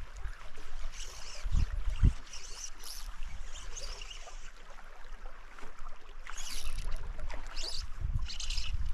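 Water swishing and splashing around a wading angler's legs in a small stream, in irregular bursts, over a low rumble.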